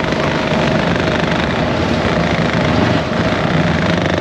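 ATV engine running steadily, a constant drone.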